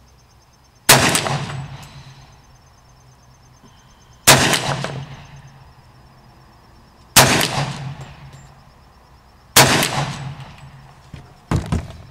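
Four rifle shots fired a few seconds apart, each followed by a long echoing decay, then two fainter sharp cracks near the end.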